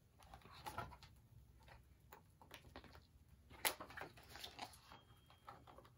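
Faint rustling and light taps of a picture book's pages being handled and turned, with one sharper snap of the page a little past halfway.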